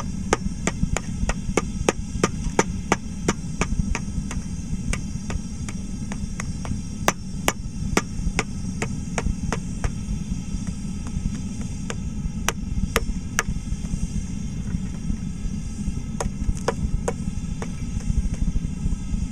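Hammer blows chipping apart a hot plaster investment mould around a fresh metal casting: sharp knocks about three a second for the first several seconds, then more scattered strikes. A steady low rumble runs underneath.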